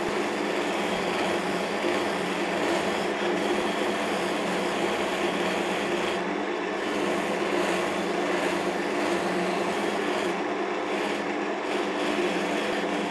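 Wood lathe motor running steadily at speed with an unstitched cotton buffing wheel on the spindle, a wooden bowl pressed against the spinning cloth: buffing the surface with white compound. A steady hum with a rushing, rubbing hiss over it.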